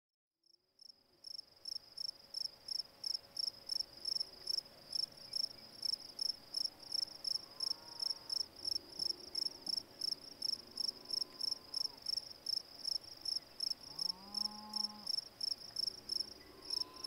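A cricket chirping in a steady rhythm, about three short high chirps a second, fading in about a second in. Faint lower sounds that rise and fall come and go behind it.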